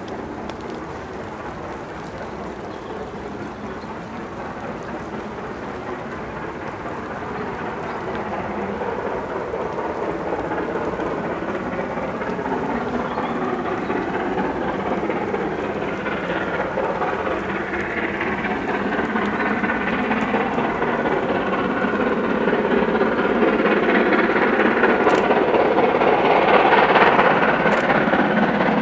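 BR Standard Class 7 Pacific steam locomotive 70000 'Britannia' working hard up a gradient with a heavy train, its exhaust a steady roar that grows louder throughout as it approaches.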